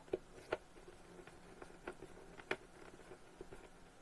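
Faint handling sounds of small plastic model parts: light clicks and taps as a small screw and a plastic bracket are fitted into a plastic base, a few of them sharper.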